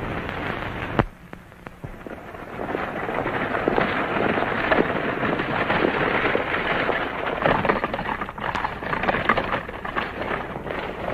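Horse-drawn stagecoach travelling at speed: a dense clatter of hoofbeats with the coach's wheels and body rattling, swelling up about two seconds in after a sharp click and a short lull.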